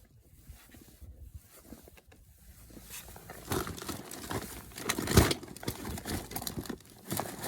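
Rustling and small clicks of hands handling the tap parts and tools, quiet for the first three seconds, then busier, with a louder knock about five seconds in.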